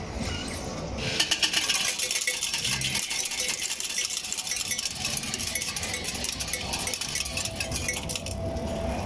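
Casino cash-out kiosk paying out coins: a rapid stream of euro coins clattering into its metal tray. It starts about a second in and runs for some seven seconds before stopping near the end.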